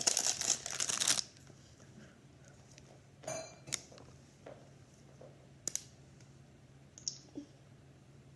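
Dense crinkling of thin plastic around a ball of slime as it is handled, stopping abruptly about a second in. After that come a few faint clicks and taps of hands on plastic.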